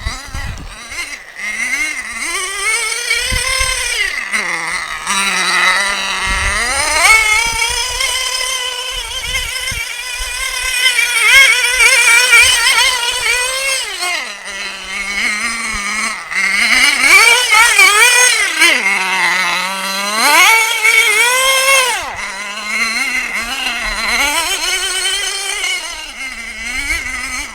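Small pull-start two-stroke engine of a radio-controlled car revving up and down over and over as it is driven, its pitch climbing and dropping every second or two.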